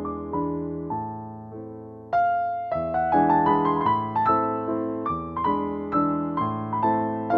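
Background piano music: gentle notes and chords, each struck and fading, with a denser run starting about two seconds in.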